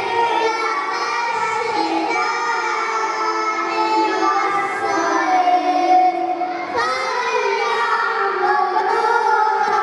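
Children's voices singing together, holding long notes in a steady melodic line.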